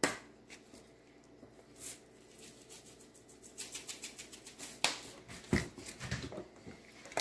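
Shaker jar of coarse steak seasoning being shaken over a bowl of flour: a quick run of small rattling taps about three and a half seconds in, then a few louder knocks.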